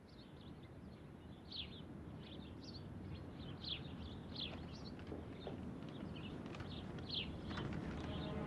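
Birds chirping in short, quick falling notes, about one every half second to a second, over a low rumbling background that grows gradually louder.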